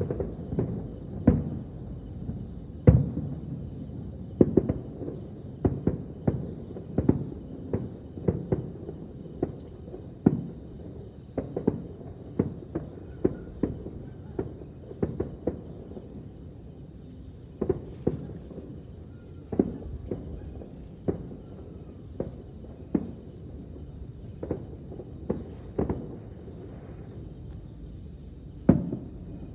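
Distant fireworks going off: dozens of dull booms and pops at irregular intervals, one or two a second, each with a short rumbling tail. They thin out in the middle and bunch up again near the end.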